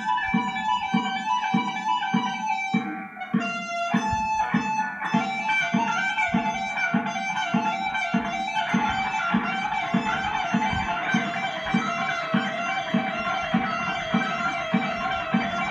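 Electric guitar playing a rapid picked run of single notes in a speed-picking exercise, over a steady low beat about twice a second. The notes briefly thin out and change about three seconds in, then the fast run resumes.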